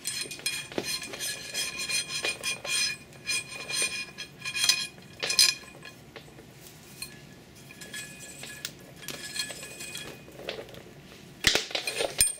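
Metal pipe of a hydrophone mount clinking and ringing as cables are fed through it, the cable rubbing and knocking against the tube. The clinks come thickest in the first few seconds, again about five seconds in, fewer in the middle, and louder knocks near the end.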